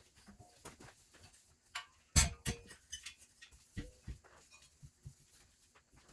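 Scattered knocks, clicks and clinks of hand-handling work on the metal frame and materials. The loudest is a sharp knock about two seconds in, with a short ring, and another comes just before four seconds.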